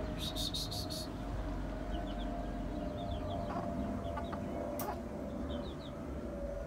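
Blueface hatch gamecock beating its wings in a quick run of strokes for about the first second, then short high chirps and clucks of chickens, over a faint steady hum.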